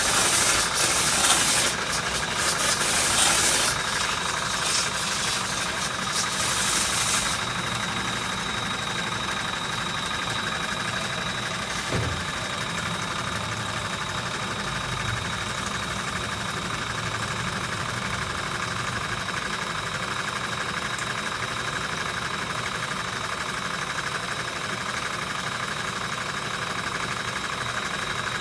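A motor-driven machine from a car-wash pressure washer, blower and foamer setup running steadily with a thin high whine. Bursts of hiss come and go over the first seven seconds, and there is a single brief thud about twelve seconds in.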